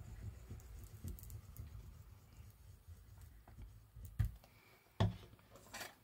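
Paper and card being handled and pressed down on a craft desk while a glued piece is placed on a folio page: soft rustling and rubbing, then two sharp taps about a second apart near the end, followed by a brief scratchy rustle.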